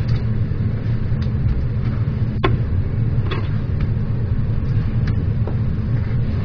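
A steady low mechanical rumble, with a few light clicks and taps of a knife cutting raw meat on a wooden board; the clearest tap comes about two and a half seconds in.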